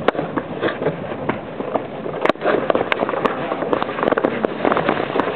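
Hackney horse's hooves clip-clopping on a paved street as it pulls a cart, a dense run of sharp clicks and knocks over a steady rumble.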